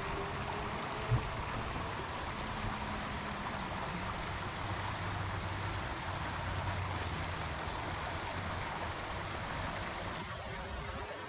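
Shallow creek water running steadily over a rocky riffle, with one sharp click about a second in.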